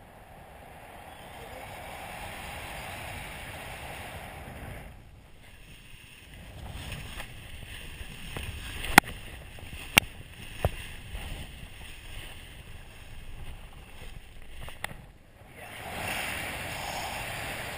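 Rushing airflow on the microphone during paraglider flight, swelling and easing in strength. About halfway through come two loud sharp knocks a second apart, followed by a few fainter clicks.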